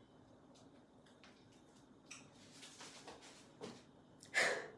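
A few faint light clicks from a saucepan being handled on a gas hob, then a short louder breathy sound near the end.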